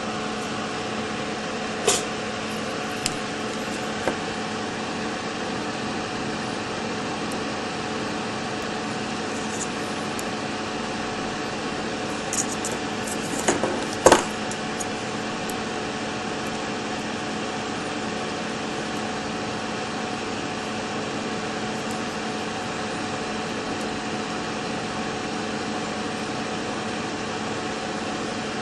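Steady fan-like hum with a constant low tone. A few light clicks and taps from handling the circuit board and soldering tools stand out over it, the loudest about fourteen seconds in.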